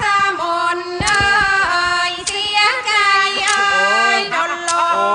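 Thai classical singing: a woman's voice holds long wavering notes over a piphat ensemble, with a sharp percussion stroke about every second.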